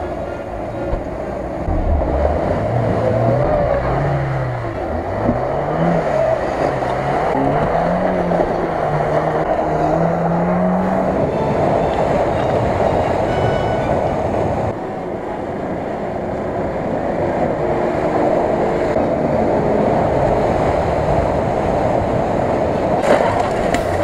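Off-road 4x4 engines revving hard while driving through deep mud and water, the engine pitch rising and falling over the first ten seconds or so. There is a sudden drop in level about fifteen seconds in, after which an engine runs steadily under load.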